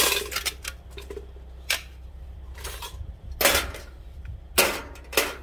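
Sharp metallic clacks and clinks at irregular intervals, about half a dozen, as small sheet-metal parts stripped from a fluorescent light fixture are handled, knocked together and dropped into a steel pot.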